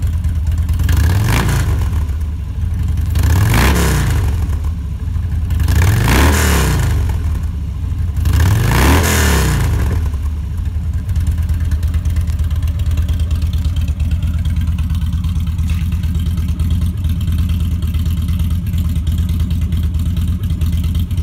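2015 Harley-Davidson Dyna Street Bob's V-twin through a Two Brothers 2-into-1 exhaust, revved four times while standing, each blip rising and falling back. It then settles into a steady idle for the second half.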